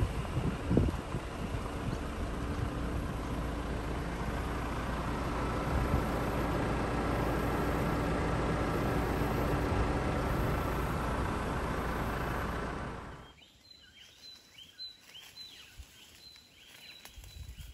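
A steady rushing noise with a low rumble that stops suddenly about two-thirds of the way through. It gives way to quiet bushland ambience with birds chirping over and over.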